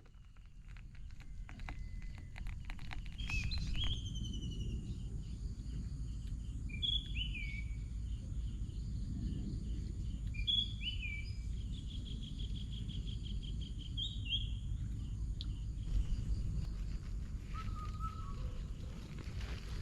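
Several birds calling and singing: short whistled phrases with quick pitch slides, and a rapid trill of evenly repeated notes midway, over a steady low rushing background. A quick run of clicks comes in the first few seconds.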